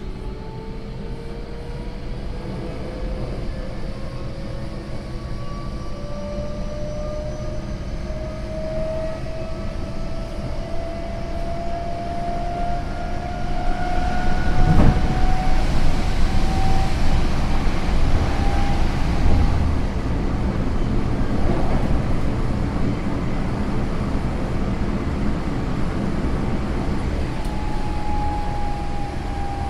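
Tokyo Metro 08 series train heard from on board. Its Mitsubishi IGBT VVVF inverter and traction motors whine in a steadily rising pitch as the train accelerates, over a deep rumble of wheels on rail. About halfway a louder rushing noise swells for several seconds, and near the end a new, slowly falling tone comes in.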